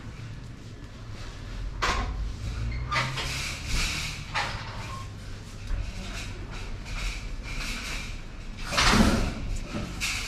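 Supermarket ambience: a steady low hum with scattered knocks and clatters, the loudest about nine seconds in.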